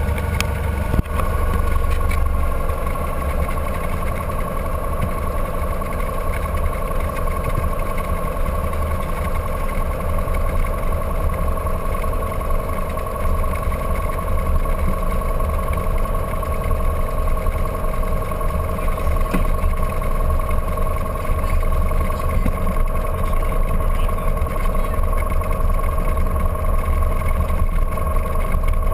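Single-engine light aircraft's piston engine and propeller running steadily, heard up close at the cowling as the plane rolls along the runway. The pitch holds level, with no rise to a takeoff power run.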